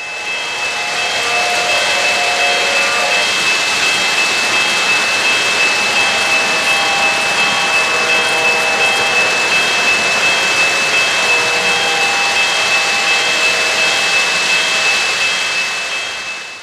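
O-gauge model freight train rolling past close by, a steady rumble of wheels on three-rail track and motor, with a steady high whine. It builds over the first second and fades out at the end.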